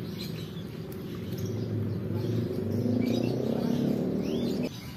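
Small birds chirping over a steady low hum that grows louder and then cuts off abruptly near the end.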